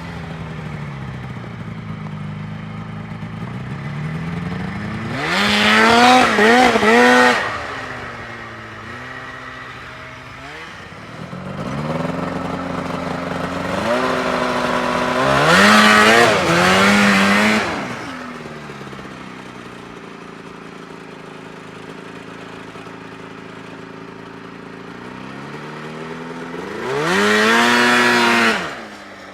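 Yamaha Phazer snowmobile engine revving hard three times, its pitch climbing and wavering at high revs, with lower, quieter running in between.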